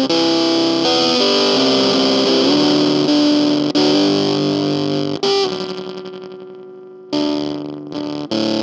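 Electric guitar played with distortion through the Bean Machine v1 effects pedal: a line of held notes, then a chord left to ring and fade for about two seconds, then fresh notes struck near the end.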